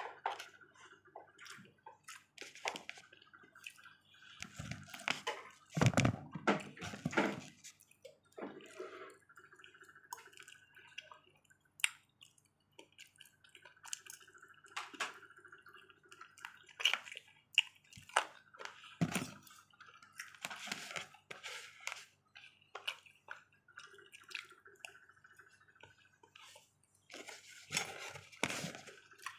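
Close-up eating sounds: wet chewing of mouthfuls of rice, with a metal fork and spoon scraping and clicking against a styrofoam food box in short irregular bursts.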